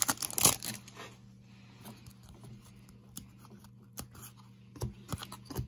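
Foil trading-card pack wrapper crinkling as the cards are pulled out, then the cards slid and flipped one at a time in the hand, making soft rustles and short ticks about once a second.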